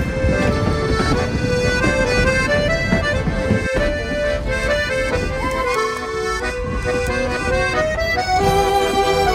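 Accordion music, a melody of held notes changing every half second or so.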